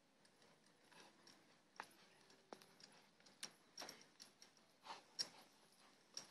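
Faint hoofbeats of an Arabian/Quarter Horse cross on arena sand, heard as soft, irregularly spaced clicks that grow a little louder after the first second or two.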